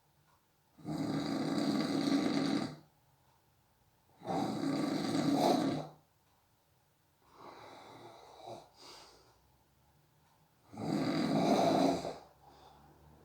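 A sleeping person snoring: four snores about three seconds apart, each lasting about a second and a half, the third one weaker than the others.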